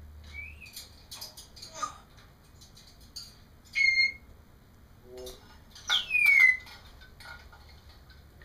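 African grey parrot whistling and clicking: a few short clicks and chirps, a steady whistle about four seconds in, and a loud whistle that slides down in pitch about six seconds in.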